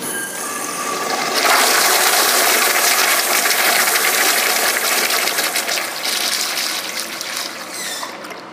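Manual flushometer valve flushing a Kohler Dexter 0.5-gallon-per-flush urinal: water rushing into the bowl, building over the first second or so and holding loud, then tapering off near the end with a brief rising whine.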